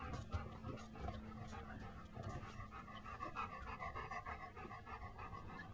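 A dog panting faintly and rhythmically.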